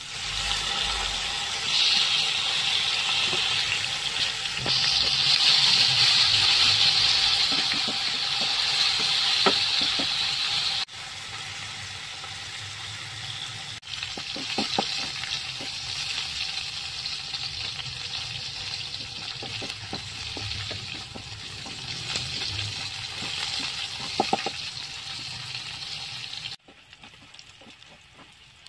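Chopped shallots, garlic and chilies hitting hot oil in a wok and sizzling hard, the sizzle starting suddenly as they go in. A spatula stirs and scrapes the pan now and then.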